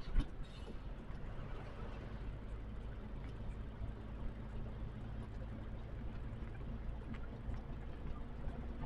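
Diesel engine of a trailer truck running steadily, a low even hum, with a single short knock just at the start.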